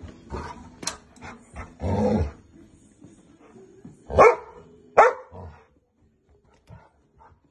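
St. Bernard barking: two loud barks about a second apart a little past halfway, after a shorter, rougher noise about two seconds in, with light knocks and scuffles of play in between.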